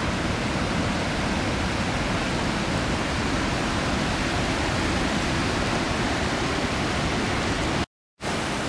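Whitewater rapids on a river running high in flood: a steady rushing roar of water. Near the end it cuts out for about a third of a second, then resumes.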